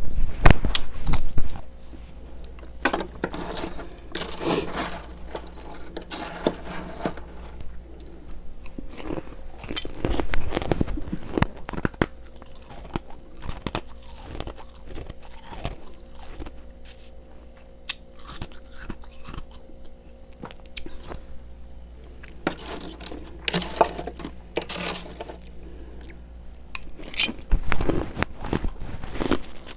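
Close-up chewing of crunchy freezer frost, in bouts of crunches with quieter stretches between; the loudest crunches come in the first second or so. A faint steady hum runs underneath.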